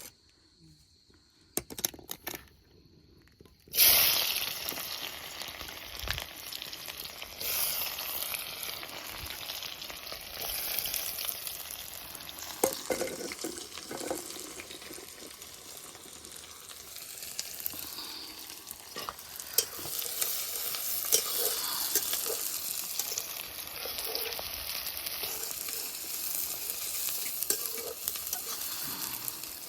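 Nearly silent at first, then from about four seconds in, food frying steadily in a hot pan with a dense sizzle and scattered crackles.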